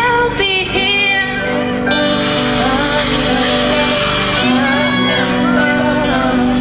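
Live music: a woman singing into a microphone, with instrumental accompaniment holding steady notes underneath.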